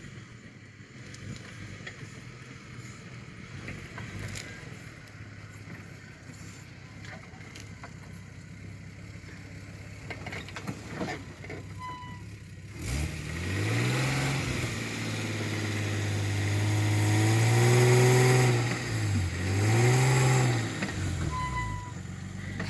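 Swapped-in 3.0 L 7M-GE straight-six of a lifted Toyota pickup, running low and steady as the truck crawls over rough ground. About halfway through it revs up under load and holds high, dips once, revs up again, then drops back.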